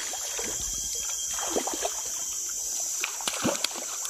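A hooked jelawat fish thrashing at the river's surface, a few irregular splashes against a steady background hiss.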